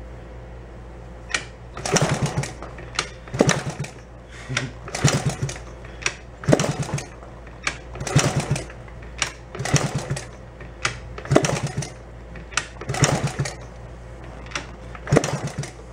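Old Honda 50 monkey bike's small four-stroke single being kick-started over and over, about ten kicks one every second and a half or so, each spinning the engine briefly without it starting. The failure to fire is put down to the ignition points and timing.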